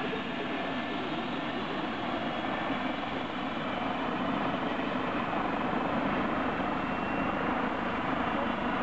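Eurocopter EC135 helicopter running on the ground during start-up, its twin turbine engines and turning main rotor giving a steady, dense whine and rush that grows a little louder about halfway through.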